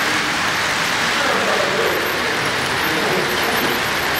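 Model trains running past on a layout's track: a steady rumble of wheels and motors.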